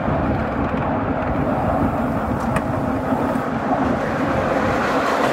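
7¼-inch gauge miniature train running along the track, heard from a riding car: a steady rumble of wheels on rail, with a faint click about halfway through.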